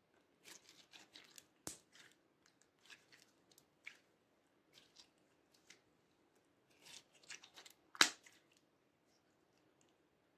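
Thick mint-blue slime being squeezed, folded and stretched by hand, giving off bursts of sticky crackles and small pops, with a sharp pop near two seconds in and a louder one about eight seconds in.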